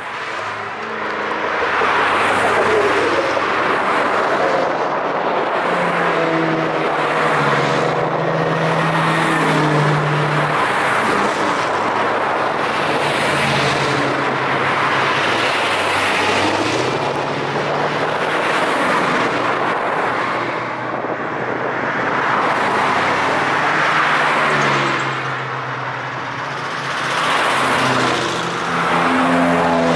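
A stream of cars, older Australian sedans and utes among them, driving past one after another at close range, each engine's note rising and fading as it goes by, along with tyre noise on the road.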